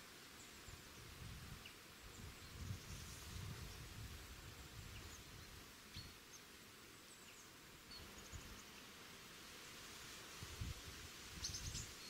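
Faint outdoor woodland ambience: a steady hiss with scattered short, high chirps and on-and-off low rumbles, loudest near the end.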